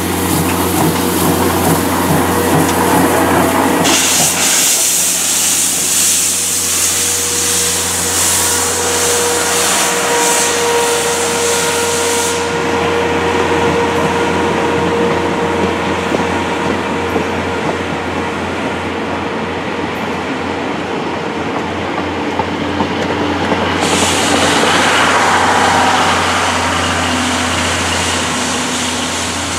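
C61 20 steam locomotive and its blue 12-series passenger coaches rolling past as the train pulls out, with the wheels clattering on the rails. A loud hiss starts about four seconds in and cuts off suddenly near the middle, and a shorter hiss swells up near the end.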